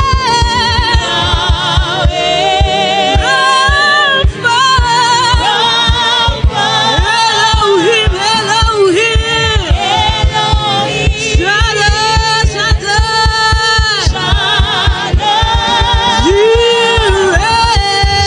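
Gospel worship music: voices singing long, wavering held notes over a steady, even beat in the low end.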